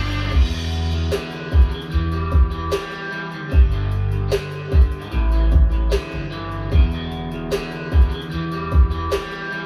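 Guitar-led rock music played through KEF LSX wireless speakers: strummed and picked guitar over deep sustained bass notes, with sharp drum hits on a regular beat.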